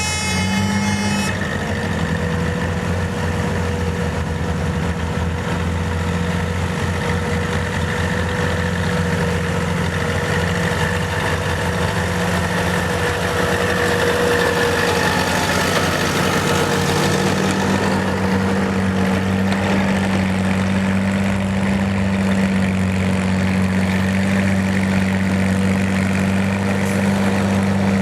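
Farm tractor engine running steadily, its pitch shifting slowly, with a horn sounding for about a second at the start.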